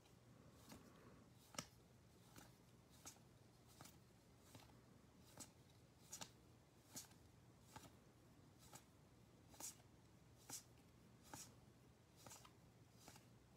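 Faint, soft flicks of paper baseball cards being slid one at a time off a stack and onto another in the hands, about one card every second, over a faint steady hum.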